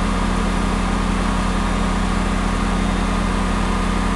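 An engine idling steadily: a constant low drone with an even hum.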